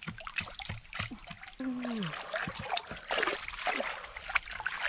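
Stream water splashing and sloshing in quick irregular bursts as a person wading waist-deep rummages with hands and a stick among submerged tree roots.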